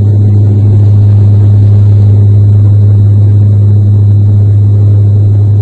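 Loud, steady cabin noise of an airliner on its takeoff roll, heard from a window seat: engines at takeoff power with a constant low hum, and the main-gear tyres rumbling on the runway.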